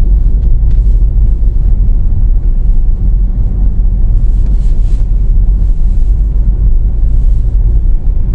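Steady low rumble of a car being driven slowly, heard from inside the cabin: engine and road noise.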